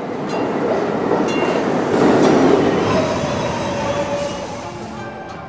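Metro train passing, its rumble swelling to a peak about two seconds in and then fading, with a wheel-squeal tone after the peak.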